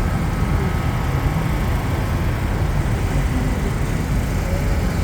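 Steady low rumble of a river tour boat's engine running under way.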